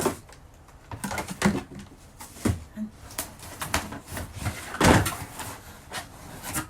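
Irregular knocks, bumps and rustles of a cardboard box and packaging being handled during an unboxing, the loudest cluster about five seconds in.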